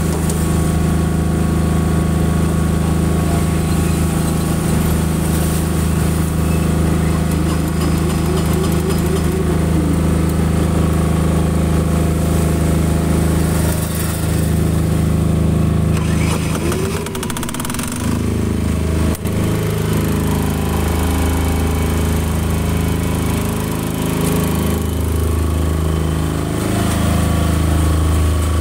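Enclosed air-cooled diesel generators running steadily with no load, a low, even engine note. About 18 seconds in, the note dips and changes as the yellow General MT10000SS diesel generator is heard, with one sharp knock just after.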